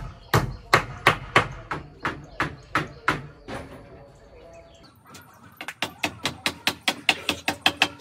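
Hammer nailing wooden roof timbers. Steady blows come about three a second, pause a little after three seconds in, then resume as a faster run of blows near the end.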